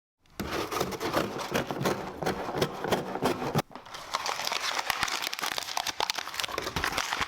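Packaging being handled: crinkling and rustling with many small clicks. It breaks off briefly about three and a half seconds in, then resumes.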